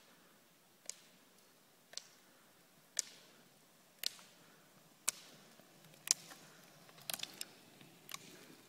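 Roller-ski pole tips striking asphalt with sharp clicks about once a second, the even rhythm of double poling, with a quick run of several clicks near the end.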